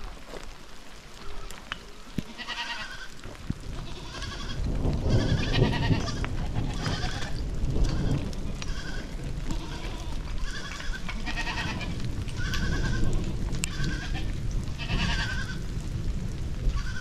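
A herd of goats bleating over and over, one call after another about once a second, with a steady low rumble underneath from about four seconds in.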